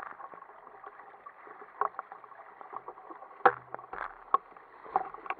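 Choppy sea rushing and slapping against the hull and outriggers of an Ocean Kayak Prowler 13 under sail, with a steady rushing wash. Several irregular sharp slaps and knocks come through it, the loudest about three and a half seconds in.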